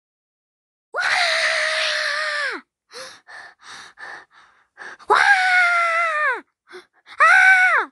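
Three long, shrill screams, each dropping in pitch as it ends, the last one shortest, with quick breathy gasps between the first two.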